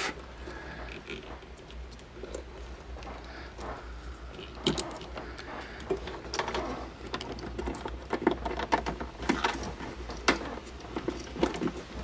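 Scattered clicks and rustles of hands working a plastic wiring-harness connector and its wires. The clicks come more often from about four and a half seconds in.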